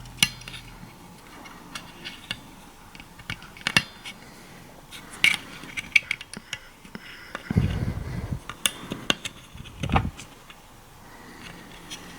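Small hard objects being handled: a scatter of sharp clicks and light rattles, with a low thump about two thirds of the way in and another shortly after.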